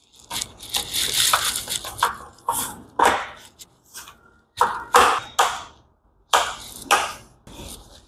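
Lenovo V14 G3 laptop's base cover being pressed back onto the chassis by hand: a series of sharp clicks and snaps as the cover seats, with handling and rubbing noise in between.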